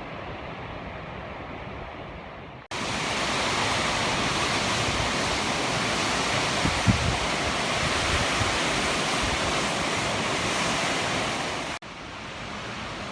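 Jogini waterfall rushing, a steady roar of falling water. About three seconds in it cuts abruptly to a much louder, brighter rush, then drops back to the softer rush near the end.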